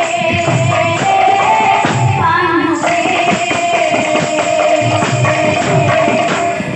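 Live Odia kirtan music: a woman sings into a microphone over a two-headed barrel drum and metal percussion, with the drum striking at a regular beat.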